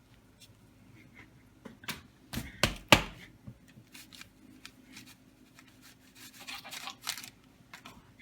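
Dough being cut into pieces on a board: a few sharp knocks about two to three seconds in, the loudest near three seconds, then softer scraping and rubbing around six to seven seconds.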